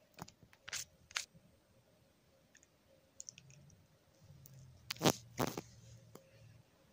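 Phone being handled close up: scattered soft clicks and knocks, with two sharper knocks about five seconds in, over a faint low hum.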